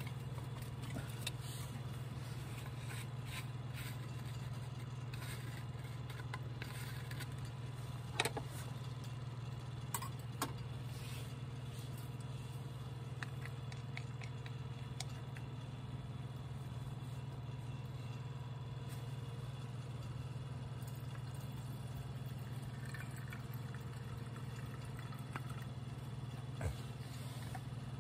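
A steady low rumble with a few light clicks and knocks of small camping gear being handled, about a third of the way in and again near the end.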